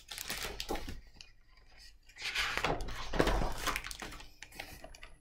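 A hardcover picture book being handled and opened: the cover and pages rustle and rub, with a few light knocks, in two spells, a short one at the start and a longer one about two seconds in.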